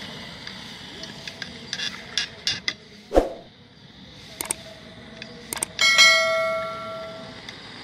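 Subscribe-button animation sound effects: a few sharp clicks, a whoosh about three seconds in, more clicks, then a loud bell ding near the end that rings out for about a second and a half.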